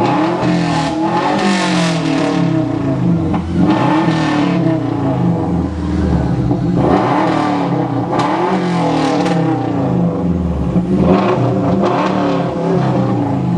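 Subaru Legacy's 2.5-litre boxer four-cylinder engine revved several times, the pitch climbing and falling back again and again, with a raspy exhaust note.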